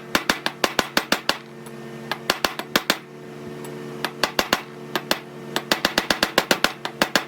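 Rapid hammer blows on metal, about five or six a second in bursts with short pauses, driving a new wheel-bearing race into the hub of a John Deere 24T square baler. A steady low hum runs underneath.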